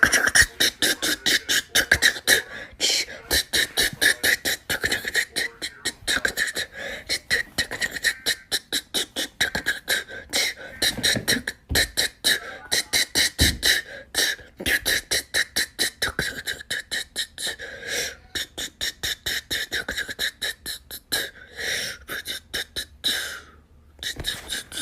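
A person making rapid, repeated mouth sounds, about five pulses a second with a few short breaks, in a beatbox-like stream, as a vocal imitation of a fidget spinner whirring.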